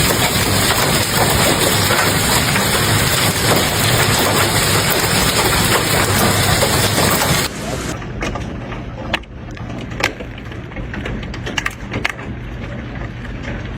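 Hail pelting down in a dense, loud clatter. About seven and a half seconds in it gives way suddenly to a quieter stretch with scattered separate hailstone hits.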